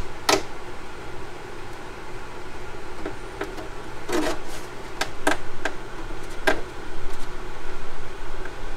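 Pin-vise-style hand drill being twisted through a thin plastic RC wing side plate, making about eight short scratchy clicks spread unevenly over the seconds, over a steady background hum.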